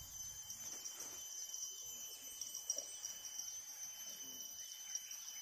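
Faint, steady high-pitched drone of insects, with a few soft ticks.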